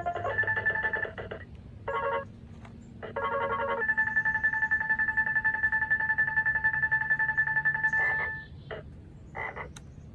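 Circuit-bent Protech toy keyboard putting out glitchy electronic tones through its built-in speaker: stuttering bursts of buzzy notes, then one long held tone with a rapid flutter for about four seconds, ending in a couple of short blips.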